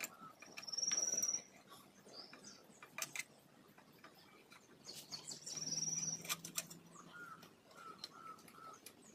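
Faint bird chirps: two short, high, rapidly pulsed trills, one about half a second in and one about six seconds in, then a run of four or five short, lower whistled notes near the end. A few sharp clicks come in between.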